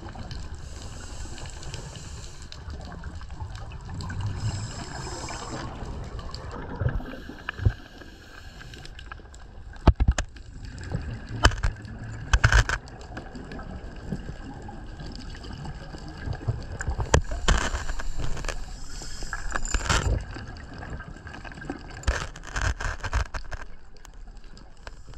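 Underwater camera audio from a scuba dive: a steady hiss with gurgling bursts of a diver's exhaled bubbles, and scattered sharp clicks and knocks, the loudest about ten, twelve and twenty seconds in.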